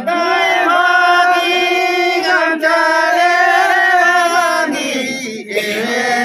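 A group of men singing a slow song together in unison, holding long drawn-out notes. The singing breaks off briefly about five seconds in, then starts again.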